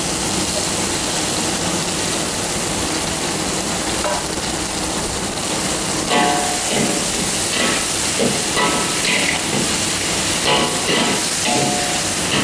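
Shelled mussels sizzling in hot oil in a steel wok. From about six seconds in, a metal spatula scrapes and clicks against the wok as they are stirred.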